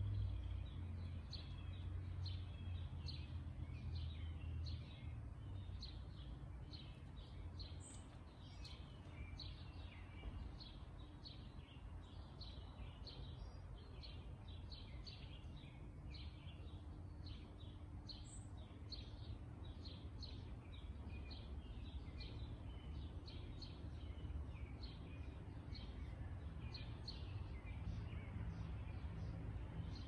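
Many small birds chirping busily, short high chirps overlapping without a break, over a steady low rumble; twice a single sharper, higher call stands out.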